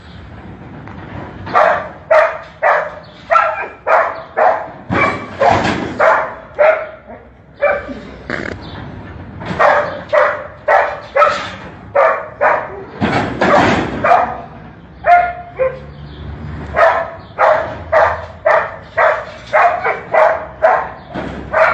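A dog barking over and over in short, sharp barks, about one or two a second, with a couple of brief pauses.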